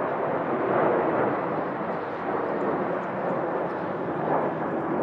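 Jet engines of an Alaska Airlines Boeing 737 passing low overhead: a loud, steady rushing noise.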